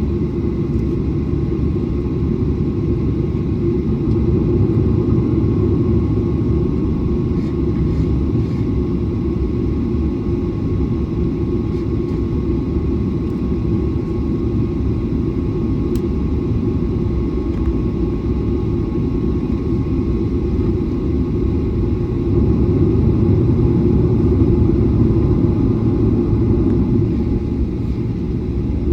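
Airliner taxiing: a steady low rumble of the jet engines at taxi power, with a faint steady whine above it, swelling slightly twice.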